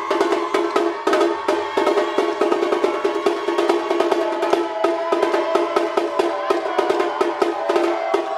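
Brazilian percussion ensemble rehearsing, playing a fast, even rhythm of drum and stick strokes over a steady held tone.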